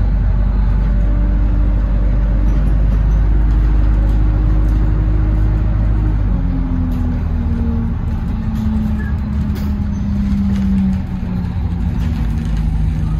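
Double-decker bus running along the road, heard from the upper deck: a steady low engine rumble with a whine that climbs a little, steps down in pitch about halfway through, then slowly sinks as the bus eases off, dipping in level near the end.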